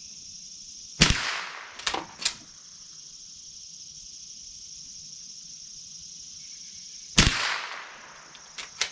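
Two shots from a Remington Model 12 pump-action .22 rimfire rifle, about six seconds apart, each followed within a second by a few clacks of the slide being worked to eject the empty and chamber the next round. Steady cricket chirring underneath.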